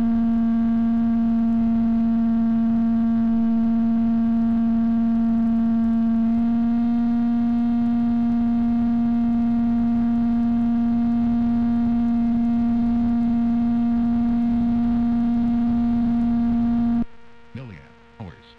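Steady droning buzz from a model airplane's electric motor and propeller in cruise flight, held at one pitch with a ladder of overtones. It steps slightly higher about six seconds in and cuts off abruptly near the end.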